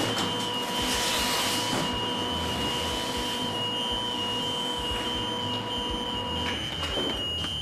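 Fire station turnout alarm sounding a steady high-pitched tone, with lower tones under it that stop about six and a half seconds in. A rushing noise runs through the first three or so seconds.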